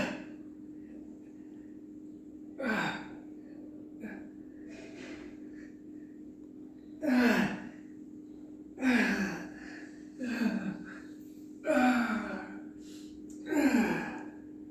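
A man's voice making short strained groans, each falling in pitch, about seven times, one to four seconds apart: the sound of straining through back-pain exercises.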